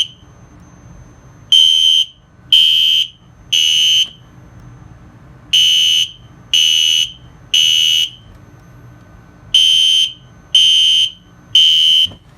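System Sensor SpectrAlert Classic fire alarm horn sounding a loud, high-pitched beep in groups of three, about one a second, with a longer pause between groups. This is the temporal-3 pattern, the standard signal to evacuate.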